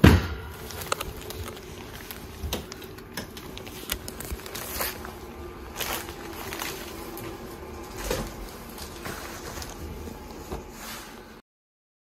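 Small dogs moving about on carpet tiles: scattered light clicks and soft knocks over a faint steady hum, with a sharper knock at the very start. The sound cuts out shortly before the end.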